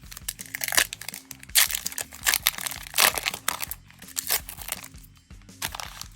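Foil booster pack wrapper crinkling and crackling as it is handled and opened, in a run of sharp bursts through the first four and a half seconds, over steady background music.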